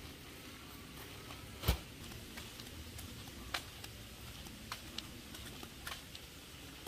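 Light rain: a steady low background noise with scattered drops tapping irregularly, and one louder knock about a second and a half in.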